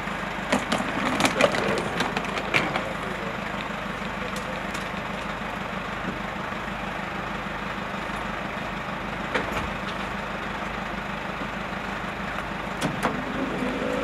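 A minibus engine idling steadily, with scattered knocks and clicks over it in the first few seconds and again near the end.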